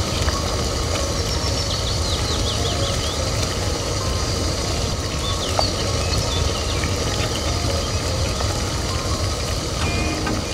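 Steady low outdoor rumble like distant traffic, with small birds chirping now and then, mostly in the first few seconds. One light click about halfway through.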